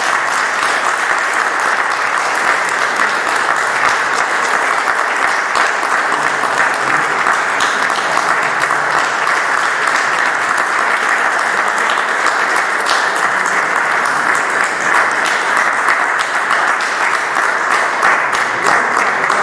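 Audience applauding: steady, sustained clapping from many hands.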